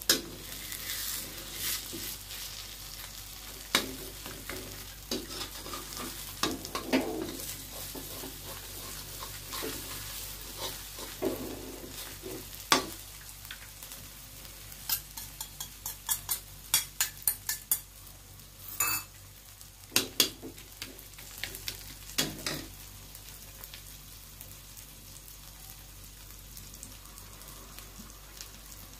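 Egg omelette with chopped vegetables sizzling in oil in a wok, while a spatula scrapes and knocks against the pan. There is a quick run of knocks about halfway through, and for the last few seconds only the steady sizzle remains.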